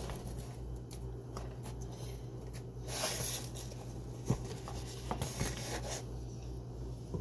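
Metal utensil scraping and spreading crunchy peanut butter across soft bread: scattered light scrapes and small clicks, with a longer, louder scrape about three seconds in, over a steady low hum.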